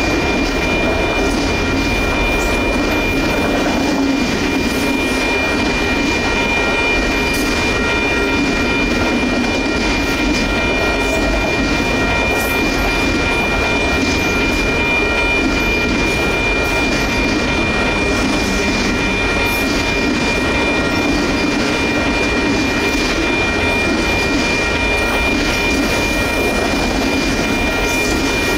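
Autorack freight cars rolling past at a grade crossing: a steady rumble of steel wheels on rail with scattered clacks. A steady high ringing tone sits over it throughout.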